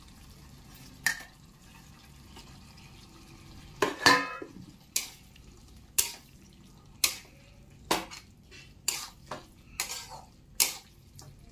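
Metal spatula knocking and scraping against a kadai as boiled eggs are stirred into masala gravy. A few scattered clinks, a louder clatter about four seconds in, then a sharp clink roughly every second.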